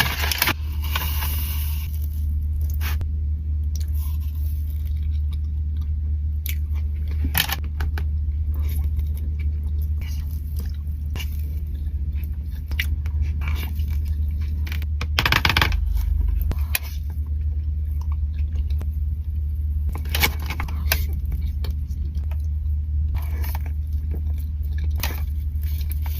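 Close-up crunching and chewing of pistachio chocolate. The bites come at irregular intervals, the longest and loudest crunch about halfway through, over a steady low hum.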